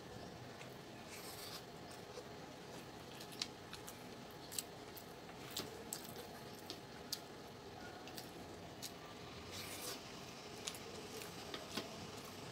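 Faint sounds of chicken biryani being eaten by hand: fingers rubbing and gathering rice on a plate, with scattered sharp little clicks throughout.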